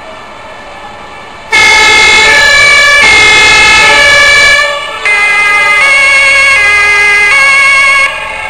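Fire engine's two-tone siren blaring at close range. It cuts in suddenly about a second and a half in, breaks off for a moment midway, and resumes with its pitch stepping back and forth before dropping away near the end, leaving fainter sirens behind.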